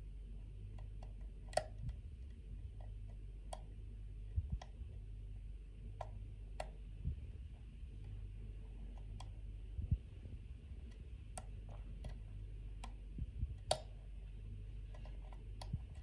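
Faint, irregular metallic clicks from a hook pick working the pins of a pin-tumbler oval cylinder lock under tension, a dozen or so scattered clicks with a few louder ones. The clicks are very crunchy, which the picker takes for threaded or rough serrated pins.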